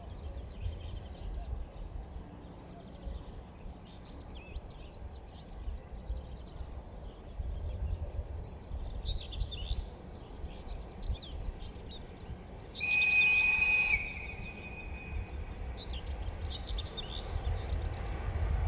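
Birds chirping over a low rumble. About two-thirds of the way through, the approaching VL80K electric locomotive gives one high, steady whistle blast lasting about a second.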